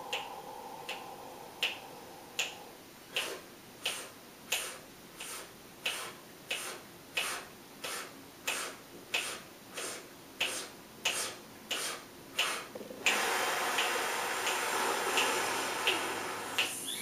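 Breathing exercise for wind players: a quiet steady inhale through a wide-open mouth for the first few seconds, then the breath held with small sips, then a loud open exhale starting about 13 seconds in. Sharp finger snaps keep the count at about one and a half a second, fifteen of them during the hold.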